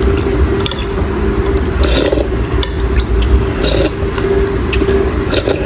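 Mukbang eating sounds: utensils scraping a bowl of fish soup, with chewing and scattered clicks, over a steady low hum.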